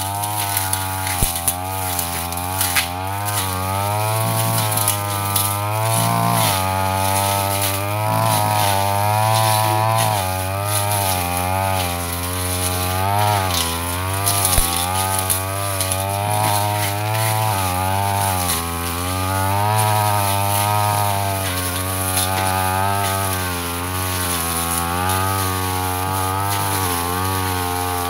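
Yasuka backpack brush cutter running at working speed while cutting through dense ferns, its engine note wavering up and down continuously as the load changes, with a few sharp ticks from stems being struck.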